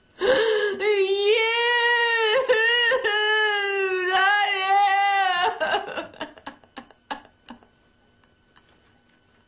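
A woman's long, wavering wail of anguish, breaking a few times, that trails off into short sobbing catches about halfway through and then fades to near silence.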